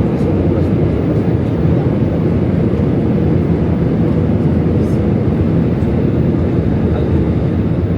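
Steady engine and airflow noise of a jet airliner heard from inside the passenger cabin, a loud low rumble with a faint steady hum.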